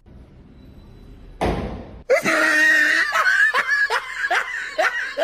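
A person laughing hard in rapid high-pitched bursts, about three a second, starting about two seconds in after a short rush of noise.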